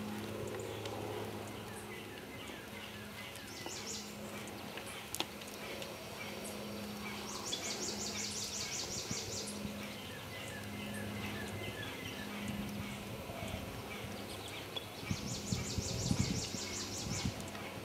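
Songbirds singing in short trilled bursts that repeat every few seconds, with strings of quick chirps between them, over a steady low hum. Near the end come soft hoof thuds on sand as the horse moves on the arena.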